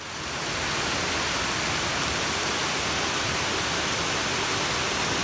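Water of a rocky brook rushing over boulders below a waterfall: a steady rush that fades in at the start.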